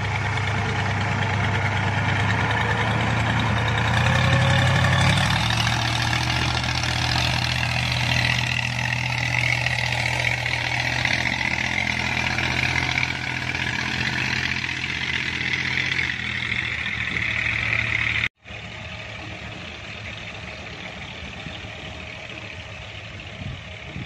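A boat engine running steadily, revving up briefly about four seconds in. It cuts off abruptly about three-quarters of the way through and carries on noticeably quieter.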